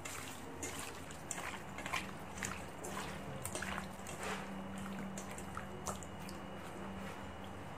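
Wet squelching of raw pork belly chunks being squeezed and mixed by hand with soy sauce and seasonings in a stainless steel bowl: irregular small squishes and clicks, over a faint steady low hum.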